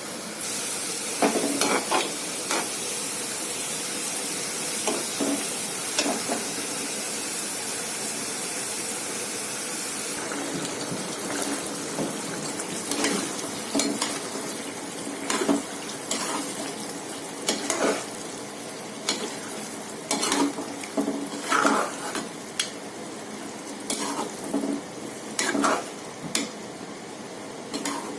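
Lauki gosht (meat and bottle gourd curry) frying in a pot with a steady sizzle, while a metal spoon stirs and scrapes against the pot. The sizzle is strongest for about the first ten seconds, and the scrapes come more often later on.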